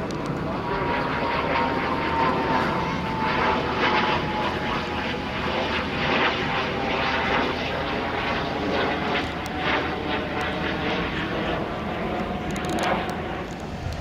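Steady engine drone with a thin whine that slowly falls in pitch over the first several seconds, over general outdoor noise.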